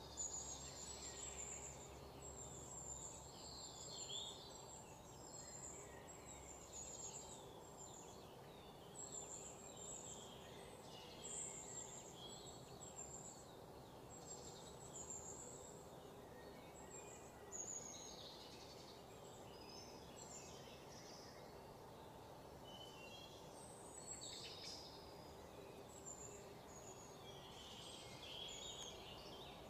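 Faint outdoor ambience: birds chirping in short, high calls scattered throughout over steady low background noise.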